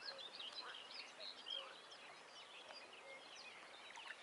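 Faint dawn birdsong: many songbirds chirping and whistling, overlapping short calls, over a steady low outdoor hiss.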